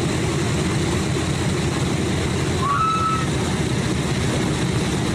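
Boeing B-17G's Wright Cyclone radial engines running at low power as the bomber taxis: a steady drone. A brief high squeak comes about halfway through.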